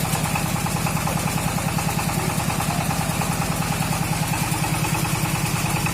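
An engine idling steadily with a rapid, even chugging beat.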